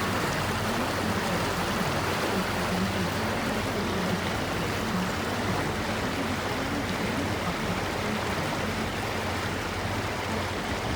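Steady rushing of water and wind from a moving river tour boat, with the low, even hum of its engine underneath.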